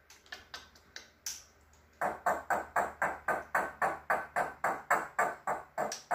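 African grey parrot making a rapid run of short, repeated calls, about four a second, starting about two seconds in after a few scattered clicks.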